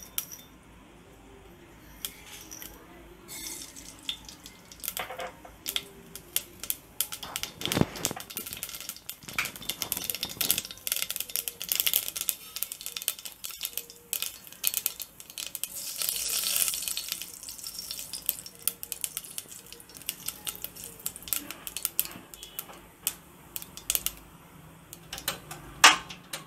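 Mustard seeds popping and spluttering in hot oil in a stainless steel pot: sharp crackles and ticks of seeds against the metal with bursts of sizzle. The pops are sparse at first and come thick and fast from about a quarter of the way in, as the oil reaches tempering heat.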